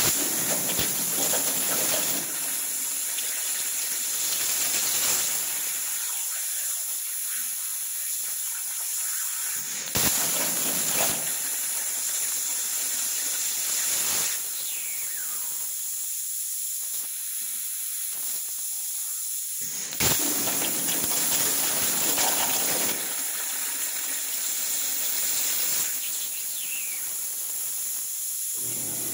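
Hypertherm air plasma torch on a CNC water table cutting steel plate: a steady hiss of air and arc that swells and eases, with a sharp click twice, about ten seconds apart.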